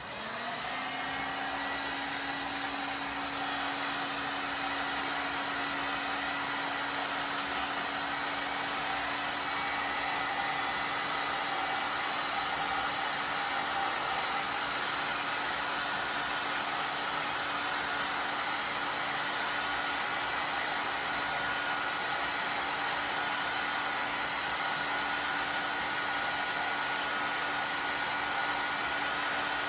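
Black & Decker heat gun on its high setting switching on, its motor hum rising briefly as the fan spins up, then blowing steadily. It is heating the adhesive along the edge of an iPad screen.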